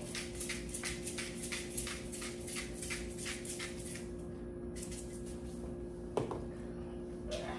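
Ground pepper rattling in a spice shaker shaken in quick strokes, about five a second, for about four seconds, then a short steady sprinkle. A single knock follows about six seconds in.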